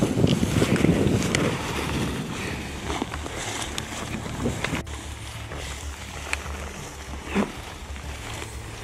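Footsteps and dry grass brushing against legs as several people walk slowly through tall grass, with scattered crackles of stems. Wind buffets the microphone, most strongly in the first second or so.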